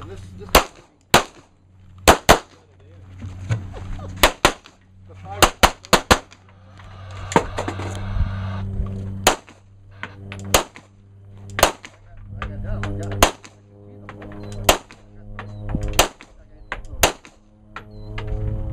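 Handgun fired over and over in a practical shooting stage. Several quick pairs and strings of sharp shots come in the first six seconds, then single shots follow roughly every one to one and a half seconds.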